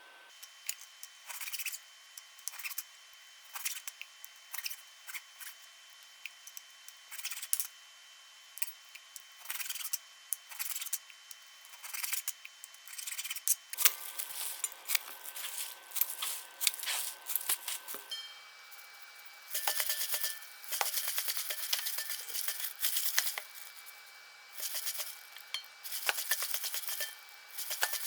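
Kitchen scissors snipping again and again in short, quick runs of sharp clicks and crunches, with brief pauses between runs.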